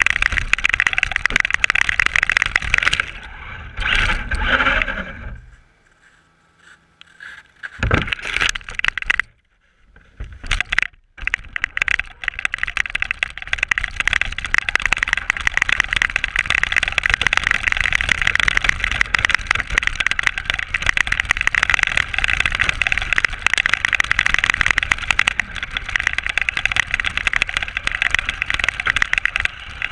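RC car driving through snow, heard from on board: steady motor and drivetrain noise with rattling and snow scraping under the chassis. It falls away for a few seconds twice, about six and ten seconds in, then runs steadily.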